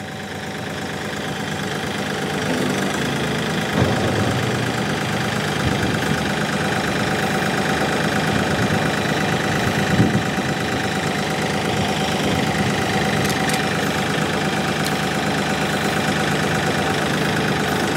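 Kioti compact tractor's diesel engine running under load, rising in level over the first few seconds and then holding steady. Two brief clunks come about four and ten seconds in.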